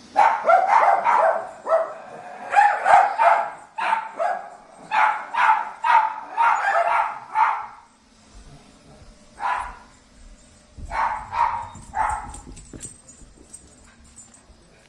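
Small caged dogs barking and yapping in rapid, overlapping volleys, then thinning out to a few separate barks after about seven seconds.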